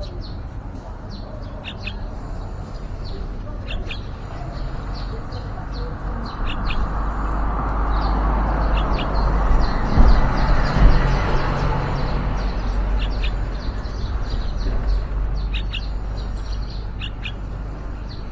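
Yellow-vented bulbuls giving short, high chirps again and again. About halfway through, a broad rushing noise with a low rumble swells up and fades away, with two brief knocks at its loudest point.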